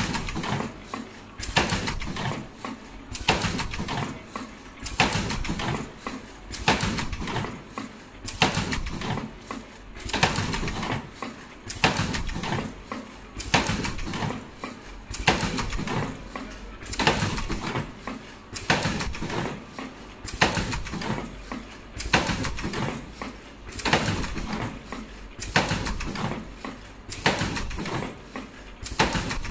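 Richpeace automatic surgical mask machine running: a repeating cycle of mechanical strokes about once a second, each with a short high tone.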